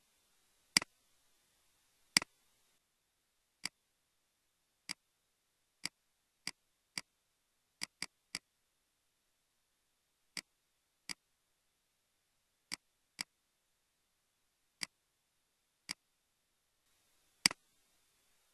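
Computer mouse button clicked about seventeen times: single sharp clicks spaced unevenly, from a fraction of a second to two seconds apart. Two clicks near the start and one near the end are louder than the rest.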